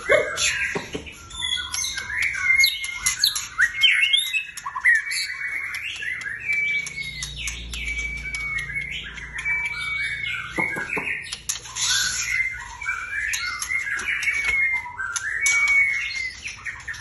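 White-rumped shama (murai batu) in full song: a continuous, varied stream of clear whistled notes and glides mixed with harsh squawks and sharp clicks.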